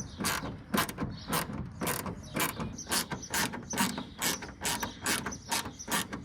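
Hand ratchet cranked back and forth in quick, even strokes, its pawl clicking about three times a second as it tightens a fastener on the car's door panel.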